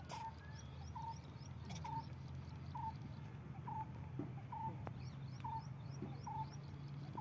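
Birds calling: one bird repeats a short call at an even pace, a little more than once a second, while another chirps in quick runs of high notes, over a steady low hum.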